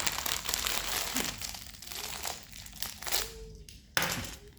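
Crinkling of packaging being handled and pulled open, a dense rustling crackle that breaks off abruptly near the end and starts again.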